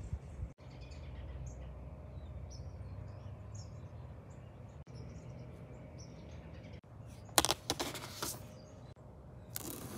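Birds chirping faintly over a steady low background rumble. About seven and a half seconds in, a loud crackle of plastic shrink wrap being pulled at on the product box, with more crinkling near the end.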